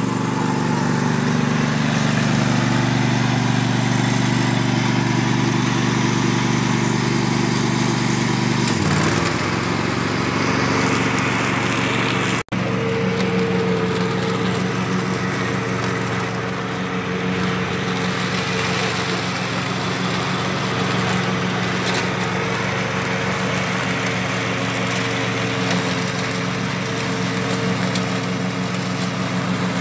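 Ride-on lawn tractor engine running steadily with its mowing deck engaged, sucking fallen leaves into the rear collector bag. The engine note shifts about nine seconds in, and the sound breaks off for an instant a few seconds later.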